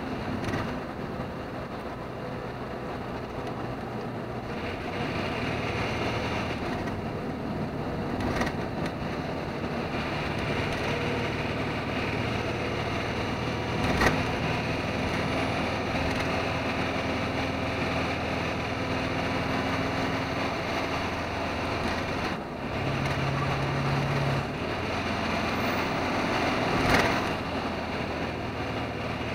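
Truck's diesel engine running steadily under road and tyre noise, heard from inside the cab. The engine note shifts briefly about two-thirds of the way through, and a few sharp knocks come through, the loudest about halfway.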